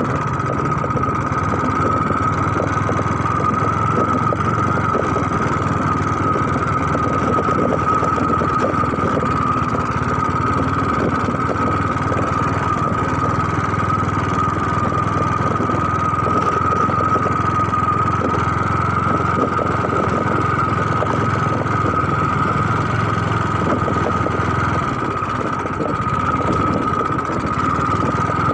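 A motor running steadily with a constant high whine; its low rumble drops away near the end.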